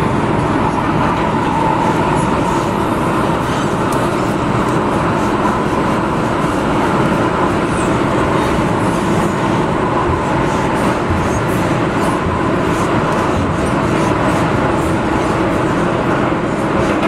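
MTR M-Train electric metro train running at steady speed through an underground tunnel: even rumble of wheels on rail, with a faint steady tone and scattered light clicks.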